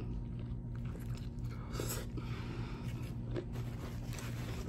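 A person biting into and chewing a soggy, sauce-soaked burger. The mouth sounds are faint, over a steady low hum.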